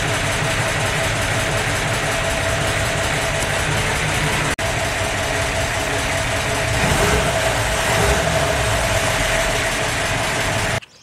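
Toyota FJ40's original straight-six petrol engine, fitted with a header and a Weber carburetor, running steadily, with a brief break near the middle and a slight rise in level twice in the second half.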